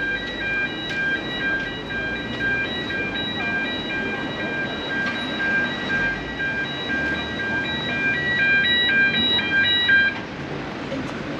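A high beeping melody of short, steady tones in several pitches, about three notes a second, turning busier near the end and stopping suddenly, over steady street noise.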